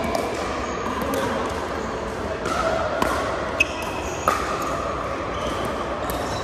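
Pickleball rally: several sharp pops of paddles hitting the plastic ball, the loudest two about half a second apart near the middle, with short squeaks of sneakers on the hardwood court and a murmur of spectators.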